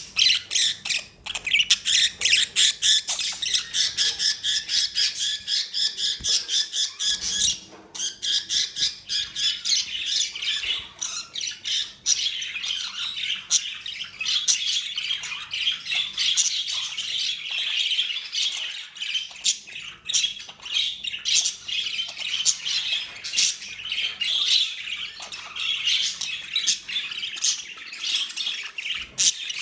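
Male budgerigars squawking and chattering rapidly and without a break while they fight for dominance, with a short pause just before 8 seconds in.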